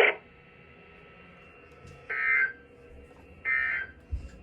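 Emergency Alert System end-of-message data signal: two short bursts of warbling digital tone about 1.3 seconds apart. They mark the end of the broadcast warning alarm test.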